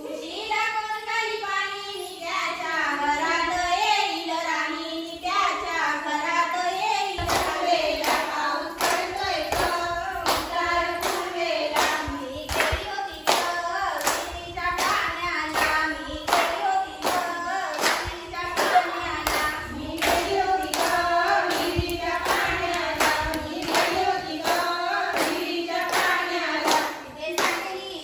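Group of women and girls singing a folk song together, joined about seven seconds in by steady hand claps keeping time, roughly three claps every two seconds.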